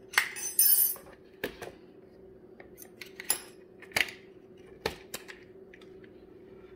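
Metal mounting brackets and the vinyl mini blind's headrail clicking and clinking as they are handled and clipped: a quick cluster of clicks in the first second, then single scattered clicks. A faint steady hum runs underneath.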